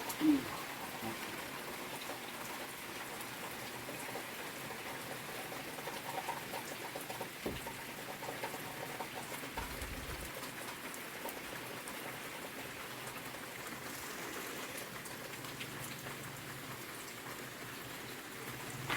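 Steady rain falling, an even hiss with scattered drop ticks; a brief squeak sounds just after the start.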